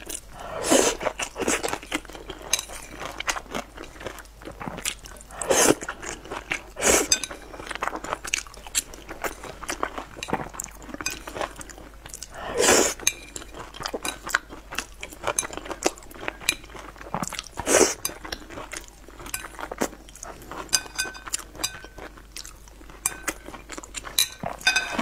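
Close-miked chewing and eating mouth sounds from someone eating a saucy stir-fry with chopsticks, with chopsticks clicking against a ceramic bowl. About five louder mouth sounds stand out over the steady chewing.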